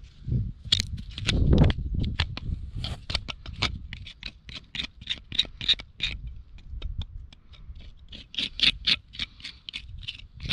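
Hoof knife paring the sole of an overgrown, neglected horse hoof: rapid runs of short, sharp scraping strokes. A dull thump about a second and a half in is the loudest sound.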